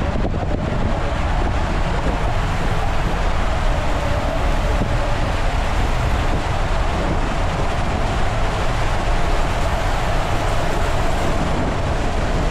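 Steady rushing water and low rumble of an inner tube sliding fast down an enclosed water slide tunnel, with wind buffeting the microphone.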